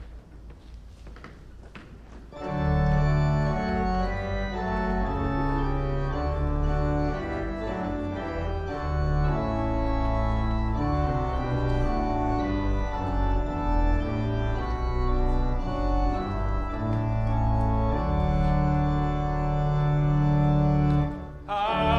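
Church organ playing a hymn introduction in held chords over a deep pedal bass, starting about two seconds in.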